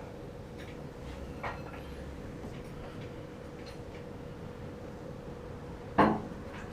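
Scattered light metal clanks and knocks from an engine being worked into a car's engine bay, with one loud knock about six seconds in, over a steady hum.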